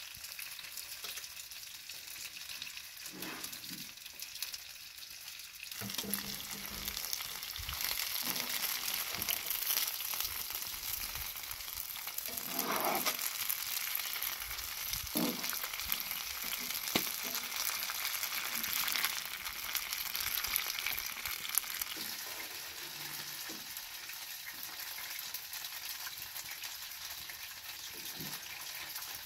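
Cauliflower florets frying in hot oil in a wide pan, a steady sizzle that grows louder for a stretch in the middle, with occasional clicks and scrapes of a metal spatula and fork in the pan.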